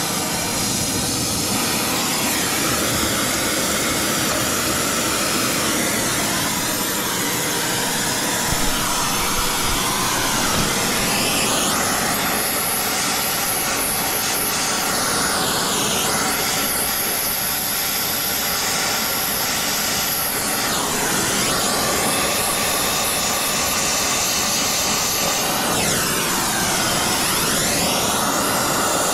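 Acetylene torch flame burning with a steady rushing hiss while brazing a copper refrigerant line joint. Its tone sweeps slowly up and down a few times as the flame is moved around the joint.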